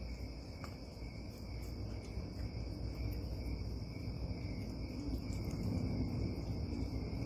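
Steady chorus of crickets chirping, with a low rumbling noise underneath that grows louder toward the end.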